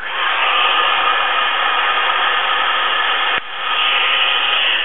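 Wagner heat gun blowing with a steady rushing hiss, dropping out for a moment about three and a half seconds in and then running again.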